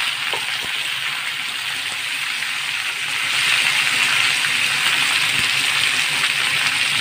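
Pointed gourd (potol) strips sizzling in hot mustard oil in a pan, freshly added to the tempering; the sizzle grows louder about three seconds in.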